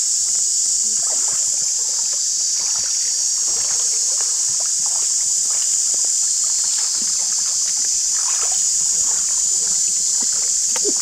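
Light splashing and sloshing of shallow river water as people wade and feel around a pile of submerged branches, a few small splashes scattered through. Over it runs a steady high-pitched insect drone.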